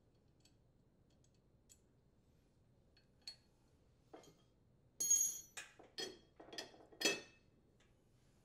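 Steel steering gear sector of a riding mower clinking and knocking against the mower's frame and steering link as it is worked free and lifted out. A few light clicks come first, then a quick run of about five ringing metal clinks in the last few seconds.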